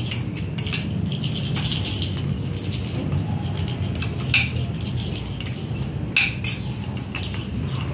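A small bell on a kitten's collar jingling in short bursts as it moves and bats, with a few sharp clicks.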